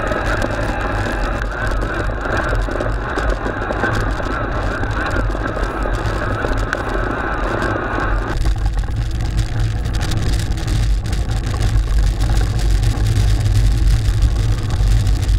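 Steady low rumble of riding noise on a bike-mounted action camera's microphone as a fat-tyre e-mountain bike ploughs through deep snow: wind buffeting and the 4-inch tyres churning snow. The higher part of the noise drops away abruptly about eight seconds in, leaving the low rumble.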